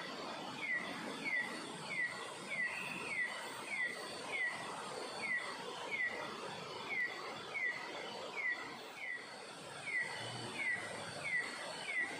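A bird repeating one short, downward-sliding chirp about one and a half times a second, evenly spaced, over steady forest background noise.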